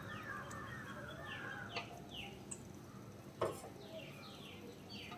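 Wooden spatula stirring a thin, watery gravy in a nonstick wok, with a sharp knock of the spatula on the pan about three and a half seconds in. Birds chirp in the background in repeated runs of short falling notes.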